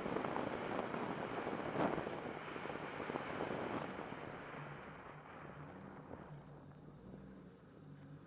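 Car noise: a broad rushing sound that fades steadily over several seconds, leaving a faint low engine hum.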